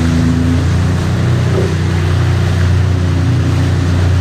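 Jet ski engine running at speed with a steady drone, over the hiss of rushing water and spray.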